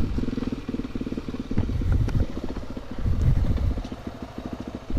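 Honda XR250 Tornado's single-cylinder four-stroke engine running through an aftermarket Belparts exhaust, a rapid even train of firing pulses, swelling louder about three seconds in and easing off toward the end.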